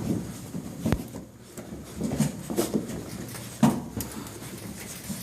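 Hound mix puppies moving about in a small room: a sharp knock about a second in and a louder thump a little past three and a half seconds, with faint shuffling in between.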